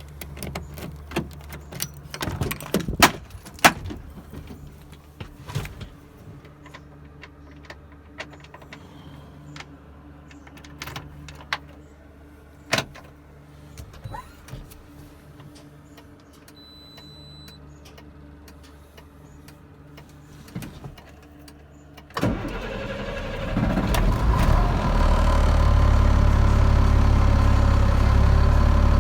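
Scattered clicks and knocks over a quiet, steady low hum. About 22 seconds in, a car engine comes on suddenly, and a second later it settles into loud, steady running as the car drives.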